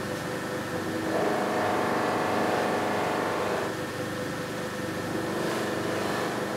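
Slow-speed bench grinder with a buffing wheel running with a steady motor hum. About a second in, and again past the five-second mark, the sound grows louder and fuller as a black lacquered guitar body is pressed against the wheel to buff it to a gloss.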